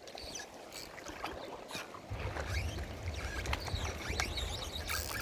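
Wind rumbling on the microphone from about two seconds in, over a steady wash of sea water, with scattered small clicks.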